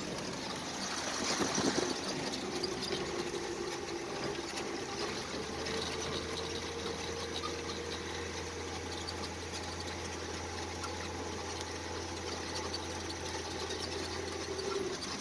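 1941 Dodge WC truck's engine running steadily under way, heard from inside the cab, with a light hiss of tyres on gravel.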